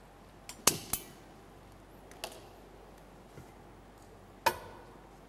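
Sharp clicks and knocks at a gas stove as a burner is lit under a pot for heating oil: two close together about a second in, another a little after two seconds, and one more near the end.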